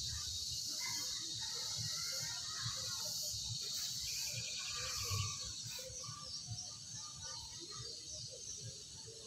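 Rural outdoor ambience: a steady high insect drone with scattered bird chirps, over irregular soft low thumps.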